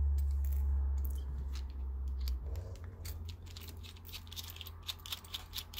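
Small metal clicks and scrapes as a driver tool is worked into the side hole of a Paclock 100GL brass padlock to take it apart and free its cylinder. A low steady hum lies under the first couple of seconds and then drops away.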